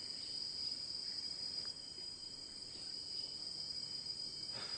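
Crickets chirring in one steady, unbroken high-pitched trill.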